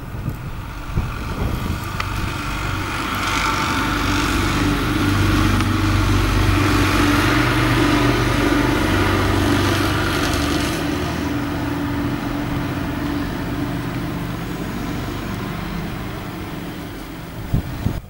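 A motor vehicle's engine running at a steady low pitch close by, growing louder toward the middle and fading near the end.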